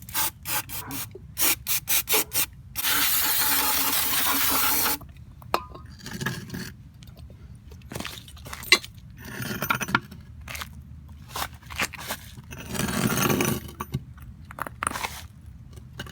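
Spraying cleaner onto a differential in two long hisses, one about 2.7 s in lasting a couple of seconds and a shorter one near the end. Between them come a quick run of sharp clicks and taps and scattered scraping and knocking of metal parts.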